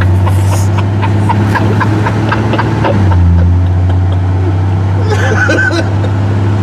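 Steady low drone of the 1963 Chevrolet Impala running down the road, with a brief dip and swell in the engine note about three seconds in.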